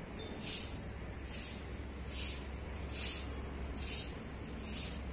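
Short bursts of high hiss repeating evenly, about once every 0.85 seconds, over a low steady hum.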